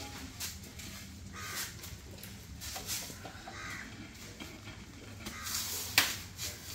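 Digital vitrified floor tiles being laid by hand onto a wet mortar bed: faint scrapes and knocks as a tile is set down and worked into place, with one sharp click about six seconds in.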